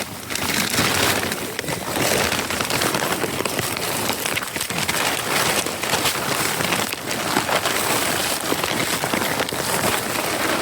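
Layers of plastic tunnel sheeting crinkling and rustling loudly, close to the microphone, as they are lifted and someone crawls in under them, a dense run of sharp crackles.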